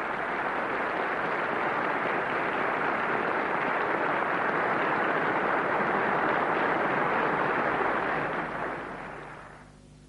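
Large audience applauding steadily, fading out about a second before the end.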